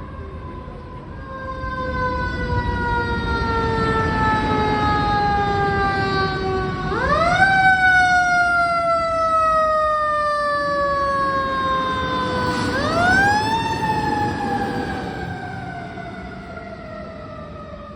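A fire engine's Federal Q mechanical siren winds down slowly in a falling wail, is spun up twice into a sharp rising scream, and coasts down again each time. A diesel engine rumbles underneath. The sound grows louder, peaks at the two wind-ups and fades near the end.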